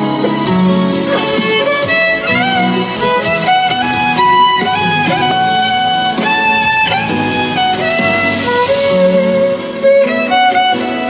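Violin bowing the melody of a slow Indonesian pop heartbreak ballad, with a quieter backing accompaniment of low held chords beneath it.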